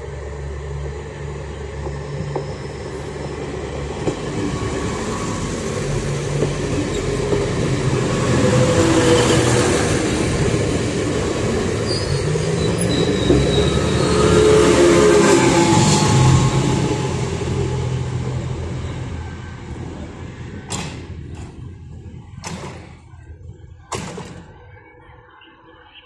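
Passenger train going by close at hand: the engine drone and wheel rumble grow to a peak about halfway through, then fade away. A few sharp knocks come near the end.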